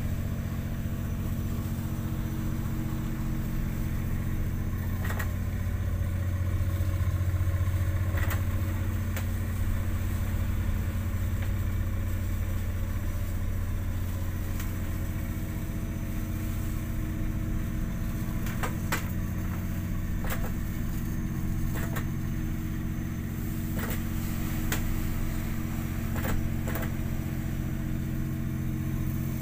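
Ship's engine droning steadily, heard inside the wheelhouse as a low hum with several steady tones. Occasional short, sharp clicks are heard over it.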